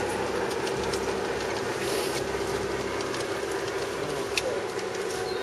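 G-gauge model freight cars rolling over a trestle on a garden railway, their wheels clicking now and then over the rail joints above a steady hum.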